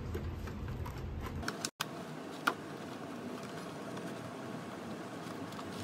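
Faint handling sounds of fabric helmet padding being pushed into the rubber edge trim of a motorcycle helmet shell, with a light click about two and a half seconds in.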